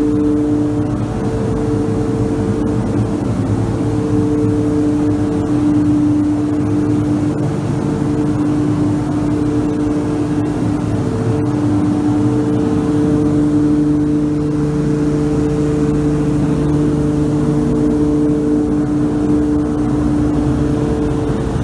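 Paint booth ventilation fan running: a steady, unbroken hum with a low rumble beneath.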